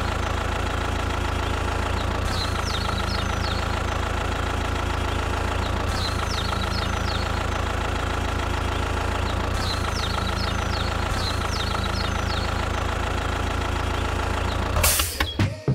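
Tractor engine idling steadily with a knocking beat, with faint high chirps repeating every few seconds. The engine sound breaks off near the end with a few clicks.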